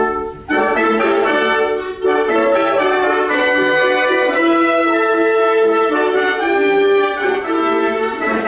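A trumpet section playing a passage in several parts together: a short opening note, then a run of held and changing notes.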